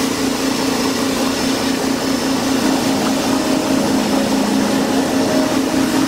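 Air hissing and bubbling up through water from a leak in a pressurized radiator core under a submerged leak test, over a steady machine hum with a fast pulse.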